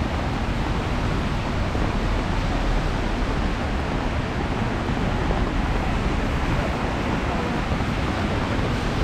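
Steady wash of city street traffic in the rain, tyres hissing on wet asphalt.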